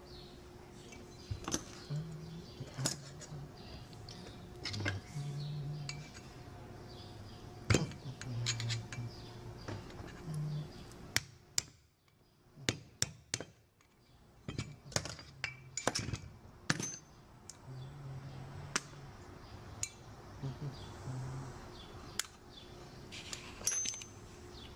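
Scattered metal clicks, taps and scrapes of a pick and screwdriver working in the steel hub of a Bridgeport variable-speed pulley disc, prying loose a stuck key and old bushing, over a faint steady hum.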